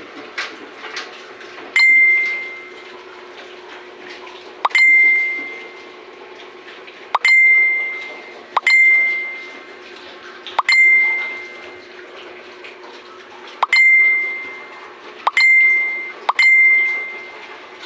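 A metal object struck eight times at uneven intervals, each strike ringing out with a clear high tone that fades over about a second.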